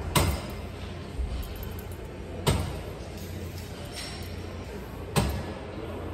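Cable machine clinking sharply three times, about two and a half seconds apart, in time with the reps of a one-arm cable curl, over a steady low hum.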